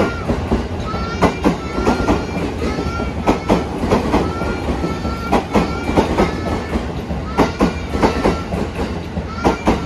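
Passenger coach wheels running over rail joints: a rhythmic clickety-clack of sharp knocks in quick pairs, repeating about every one to two seconds, over a steady low rumble. Short high-pitched squeals ring out alongside many of the knocks.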